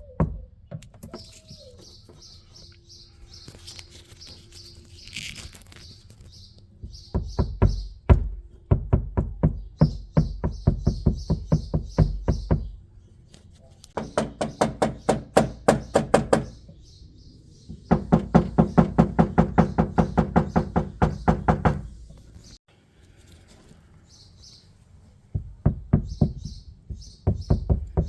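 Car door speaker playing music with a fast, bass-heavy beat in several separate passages, stopping between them, as a sound test of the door after lining it with sound-deadening mat. Birds chirp in the background.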